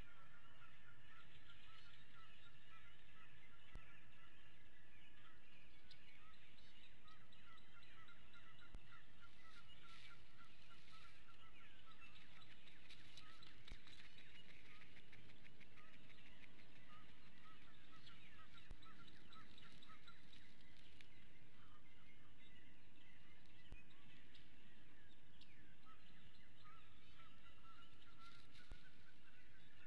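A chorus of birds calling: many short chirps and runs of quick repeated notes overlapping without a break.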